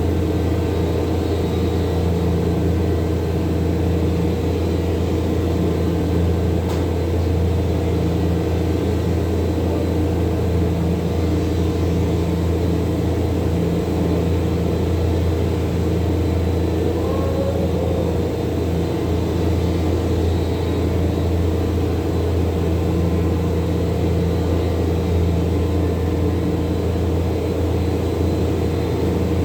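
A steady low machine hum, unchanging throughout, with a strong deep drone and a fainter higher whine over it.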